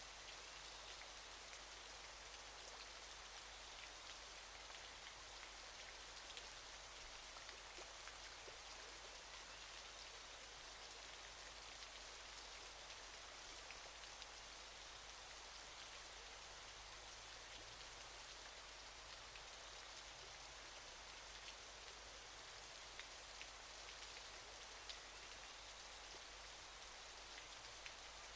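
A faint, steady rush of falling water, like a waterfall, dotted with small splashing ticks.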